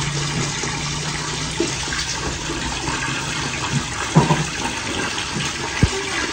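Water gushing steadily from a pump's hose into a snake burrow, churning up foam, with a low steady hum in the first couple of seconds. The burrow is being flooded to drive out a monocled cobra.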